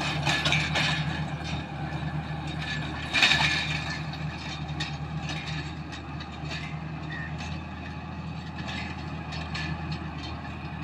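MTZ-1221 tractor's six-cylinder diesel running steadily under load while pulling a tined KShP-6 soil-preparation implement, with rattling and clanking from the implement's metal frame and tines, one louder clank about three seconds in. The sound slowly fades as the tractor draws away.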